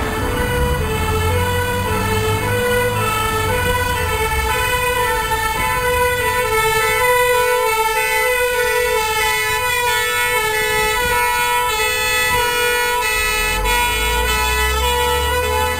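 Fire engine's two-tone siren sounding continuously, stepping back and forth between two notes. The truck's engine rumble grows louder near the end as it comes closer.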